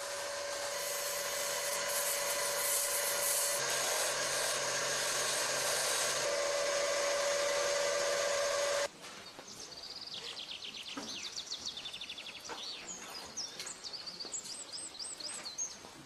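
Wood lathe running, a chisel cutting into the spinning wood with a steady hiss over a held tone, until it stops abruptly about nine seconds in. After that, birds chirp and twitter in quick high phrases.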